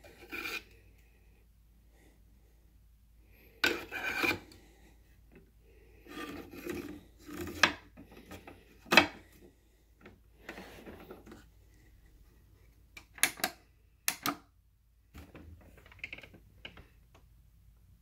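Handling noises from the plastic body and corrugated hose of a switched-off Dirt Devil Featherlite upright vacuum: irregular rubbing and scraping with a few sharp clicks.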